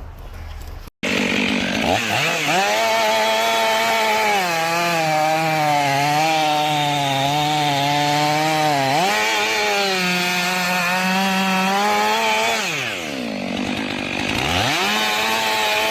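Two-stroke chainsaw at full throttle, cutting through a tree trunk, its high engine note wavering under the load of the cut. Near the end the revs drop sharply to a low note, then climb straight back up to full speed.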